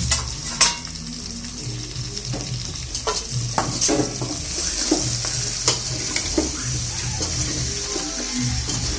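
Chicken frying in oil in a pan with a steady sizzle, as a spatula stirs it, clinking and scraping against the pan now and then.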